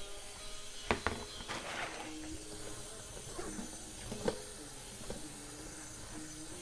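Kitchen work: a faint steady hiss with a few sharp knocks of kitchenware, two about a second in and one a little past four seconds.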